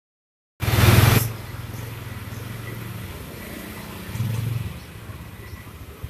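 Yamaha Jupiter Z's single-cylinder four-stroke engine running: a loud surge about half a second in, settling to a steady idle, with a brief rev about four seconds in.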